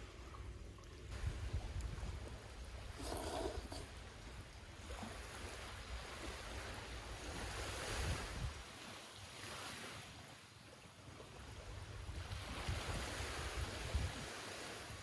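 Sea waves washing onto a beach, the noise swelling and fading slowly with each wave, with wind buffeting the microphone at times.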